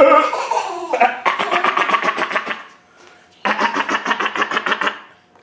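Electronic buzzing from a baby's BeatBo robot toy: a rapid, even pulsing in stretches of under two seconds with short breaks between them.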